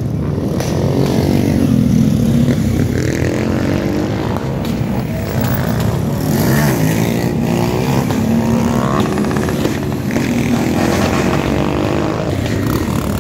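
Several small street motorcycles running and revving as they ride past, their engine notes overlapping and rising and falling in pitch.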